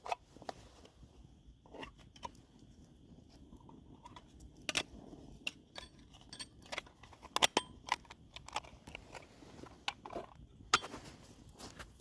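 Irregular light clicks, knocks and clinks of small hard objects being handled, with a couple of louder knocks in the second half.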